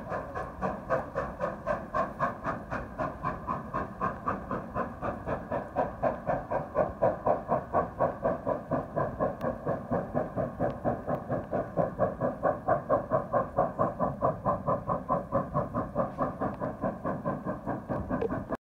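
Steam locomotive working away up the line, its exhaust beats coming in an even rhythm of about three to four a second. The sound cuts off abruptly near the end.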